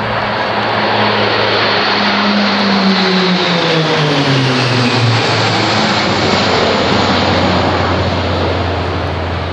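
A formation of six Pilatus PC-9/A turboprop trainers flying overhead, their propellers droning loudly. The pitch drops about three to five seconds in as they pass, then holds lower as they fly away.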